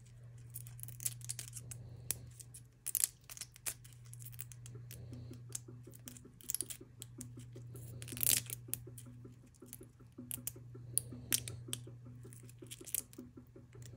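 Protective paper masking being peeled off an acrylic nameplate by hand, with irregular crackling and tearing as the paper lifts from the plastic.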